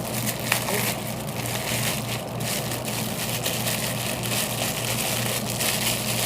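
Packaging rustling and crinkling in irregular bursts as a mailed package is opened, with a click about half a second in, over a steady low hum.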